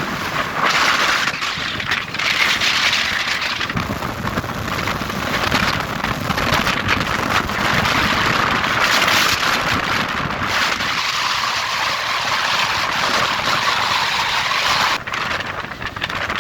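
Wind rushing and buffeting over the microphone on a moving Royal Enfield Bullet motorcycle, with engine and road noise underneath. The wind noise drops suddenly near the end.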